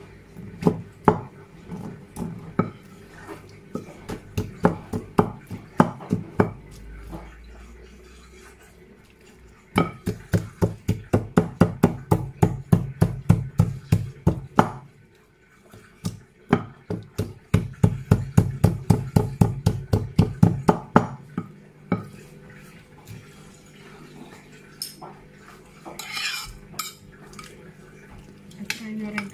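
A pestle pounding avocado into a fine mash in a bowl, knocking against the bowl. The knocks come irregularly at first, then in two fast, even runs of about four to five strikes a second.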